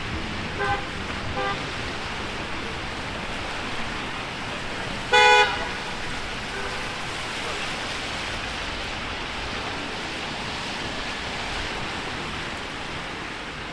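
Car horns over a steady hiss of rain and traffic on wet city streets: two short toots about a second in, then one louder horn blast of about half a second around five seconds in.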